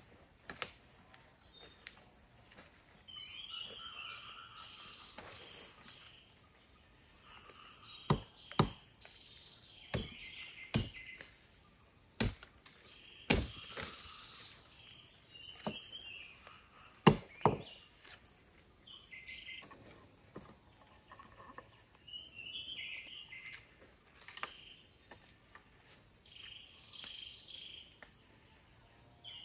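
Birds singing in short repeated phrases, with about eight sharp knocks of hand tool strikes on wood, some in quick pairs, in the middle part.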